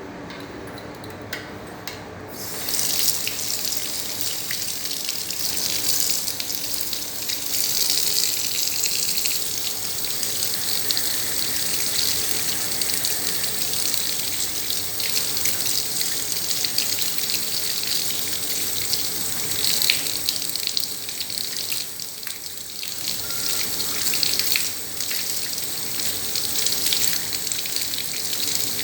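Tap water running into a sink, turned on about two seconds in and then flowing steadily with small surges and splashes, as the AFLO hydro glue gun is rinsed under warm water.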